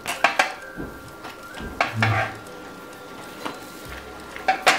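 Slotted spatula clinking and scraping against a baking sheet while baked rolls are lifted off and set down on a wire cooling rack: several sharp, irregularly spaced clicks and knocks.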